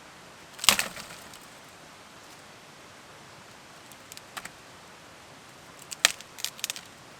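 A few sharp cracks and clicks over the steady rush of a nearby river: one loud crack less than a second in, two small clicks about four seconds in, and a quick cluster of snaps and clicks near the end.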